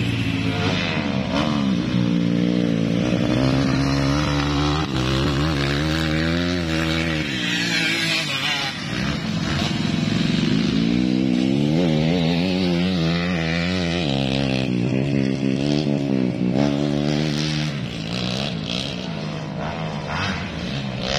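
Motocross dirt bikes running hard around a dirt track, their engine pitch climbing and dropping again and again as they accelerate and shift, with more than one bike heard at once at times.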